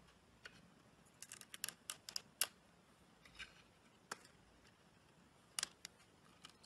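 Slime being pressed and squeezed by hand, giving faint, crisp clicks and pops from trapped air, most of them bunched together about one to two and a half seconds in, with a few more later.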